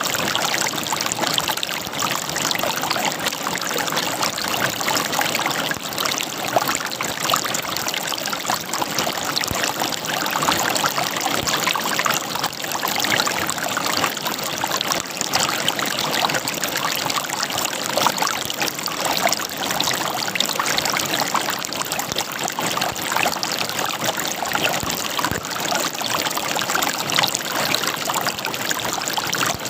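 River water gurgling and splashing over rocks, a steady, dense babble with constant small splashes.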